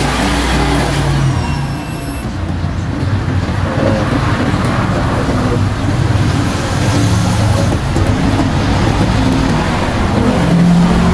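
A motor vehicle engine running steadily, loud and continuous, with a short high tone falling in pitch about a second and a half in.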